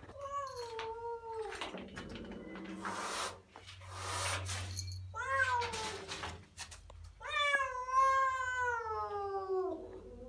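Cat yowling in a standoff with another cat: three drawn-out, wavering calls, the last and longest one about two and a half seconds, sliding down in pitch at its end, with rustling between the calls.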